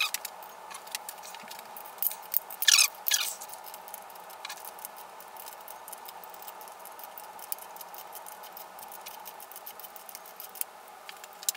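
Small metallic clicks and taps as camshaft bearing caps are worked off a BMW M54B30 cylinder head by hand, with a brief louder scraping rattle about three seconds in.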